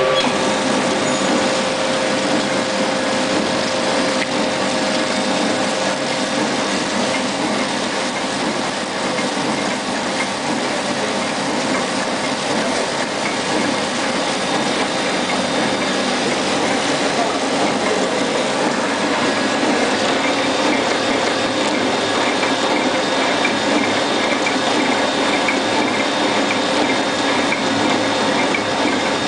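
Horizontal flow-wrapping (pillow-pack) machine running steadily as sachets feed through it: a continuous, even mechanical noise from its drive and sealing mechanism.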